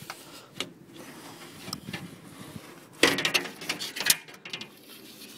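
Mazda Bongo door window glass being worked out of its door frame: light clicks and knocks, then a loud rattling scrape about three seconds in, lasting about a second.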